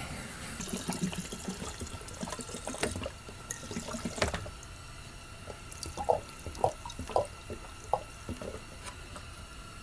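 Gasoline being poured into a chainsaw's fuel tank, filling it to full: a soft liquid trickle with scattered small clicks and knocks.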